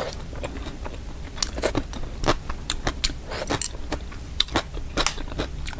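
A person eating close to the microphone: chewing with wet mouth clicks and smacks at irregular intervals.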